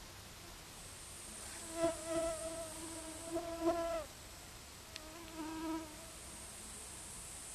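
A flying insect buzzing close by: a humming drone that swells for about two seconds from just under two seconds in and drops in pitch as it fades, then comes back briefly about five and a half seconds in. A faint high hiss runs above it.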